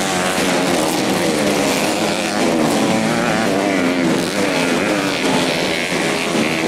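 Modified four-stroke 125 cc underbone motorcycles racing on a dirt track, their engines revving up and down continuously as they go round the course.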